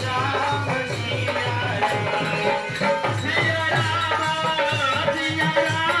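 Hindu devotional kirtan: a man's voice singing a chant over a steady hand-drum beat and jingling percussion.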